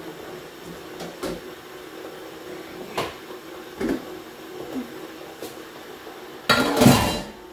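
Kitchen cookware being handled: a few light knocks of a stainless-steel pot and its lid, then a louder, longer clatter near the end.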